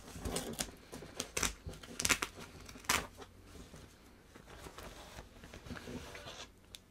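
Hook-and-loop closure of a metallized nickel-copper fabric Faraday bag being peeled open in several short rips over the first three seconds, followed by softer crinkling of the bag's fabric as it is handled.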